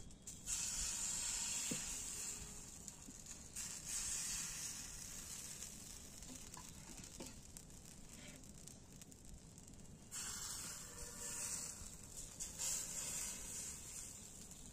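Rice batter for chitoi pitha sizzling as it goes into a hot, oiled pan. The hiss starts suddenly, flares up again about 4 seconds in and again about 10 seconds in, and dies down between.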